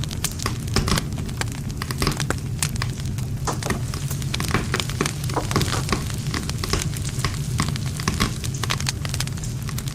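Wood campfire burning: dense, irregular crackles and pops of the burning wood over a low, steady rumble.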